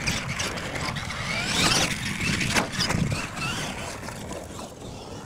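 Radio-controlled monster truck driving hard across loose dirt, its motor whine rising and falling in pitch as the throttle is worked and the tyres scrabble in the dirt. A sharp knock comes about two and a half seconds in.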